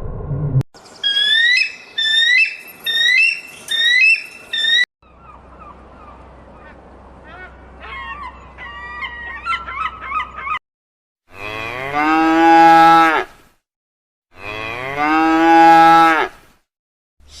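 Cow mooing: two long, loud moos, one starting about 11 seconds in and one about 14 seconds in. Before them come abruptly cut clips of other, unidentified animal calls: about five short high-pitched calls, then fainter high calls over a low hum.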